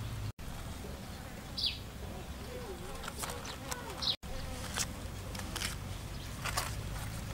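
A fly buzzing close by, its pitch wavering as it circles, with a few short scratchy strokes and two brief high chirps.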